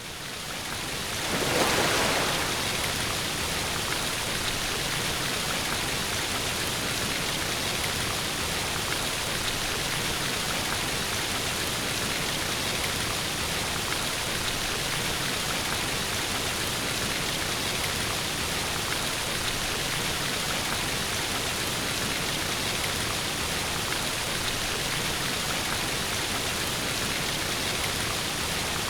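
Waterfall sound effect: steady rushing water that fades in, swells briefly about two seconds in, then holds even.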